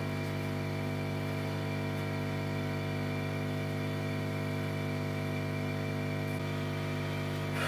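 Steady low machine hum made of several fixed tones, holding an even level throughout.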